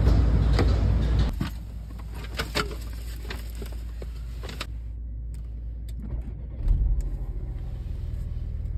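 A car door opened and shut about a second in, the outside rumble dropping away once it closes, followed by a few light clicks inside the cabin. About two-thirds of the way in the car's engine starts and settles into a low, steady idle.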